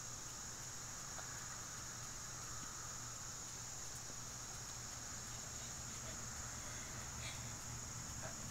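Steady, high-pitched chorus of insects droning without a break.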